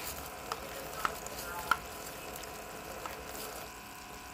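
Tap water running steadily into a sink during hand dishwashing, with a few light clinks of dishes and cups about half a second, one second and nearly two seconds in.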